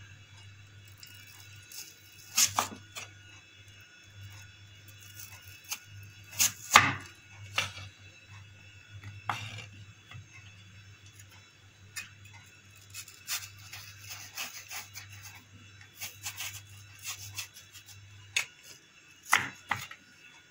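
A crinkle-cut knife slicing through raw peeled potato and knocking on a wooden cutting board, in irregular strokes. The loudest knocks come a couple of seconds in, around seven seconds in, and near the end.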